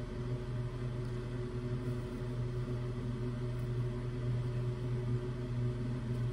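Steady low hum of room background noise, even in level, with no distinct events.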